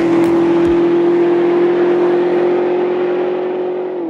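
A car engine held at high, nearly steady revs, its pitch creeping slowly upward, with a drop in pitch at the very end.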